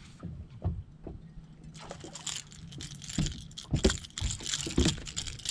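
A hooked bass splashing at the water's surface as it is reeled up to the boat and swung aboard, with a few sharp knocks on the boat deck. The splashing starts about two seconds in, and the knocks come in the second half.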